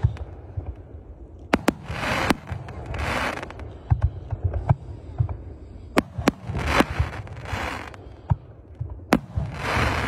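Fireworks display with aerial shells bursting in sharp bangs, some in quick pairs. Between the bangs come stretches of hissing crackle from the stars and rising comets.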